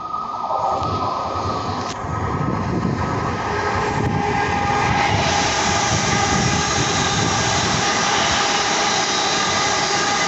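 London Northwestern Railway electric multiple unit running through the station: a steady whine of several tones from the traction motors over wheel-on-rail rumble. One tone falls in the first second, and the sound grows fuller about halfway through.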